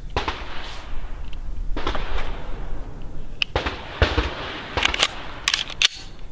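Glock 36 pistol being reassembled by hand: the slide rasps along the frame rails three times, then a run of sharp clicks comes in quick succession in the second half as parts seat and lock.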